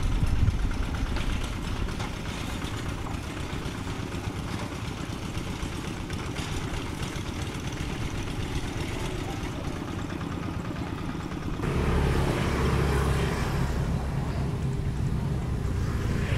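Single-cylinder diesel engine of a Quick two-wheel hand tractor running steadily under load while its cage wheels work a flooded rice paddy. About twelve seconds in it turns suddenly louder.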